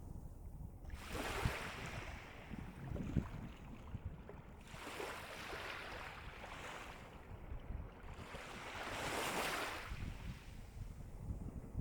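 Calm sea waves breaking and washing onto the shore, one swell after another about every three to four seconds, each rising to a rush and fading away.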